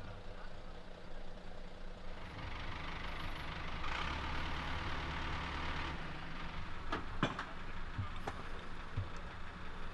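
A large vehicle's engine idling steadily, with a stretch of louder hissing noise in the middle and a few sharp clicks or knocks in the second half.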